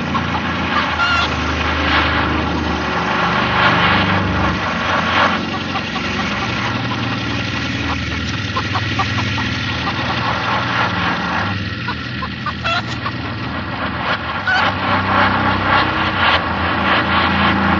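A horror-film soundtrack of droning, scraping noise played in reverse: a dense, unbroken wash of grinding noise over low humming tones, with no beat or melody.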